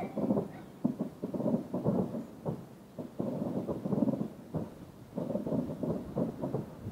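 Distant fireworks going off in a rapid, irregular series of dull, rumbling booms, with short lulls about three seconds in and again near five seconds.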